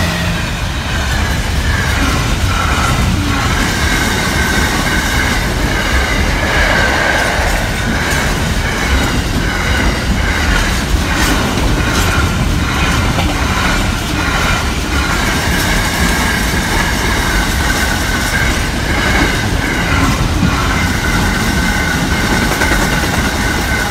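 A long freight train of container wagons rolling past at close range behind a Class 66 diesel locomotive, the wheels clattering over the rail joints. A steady high ring from the wheels runs over the rumble.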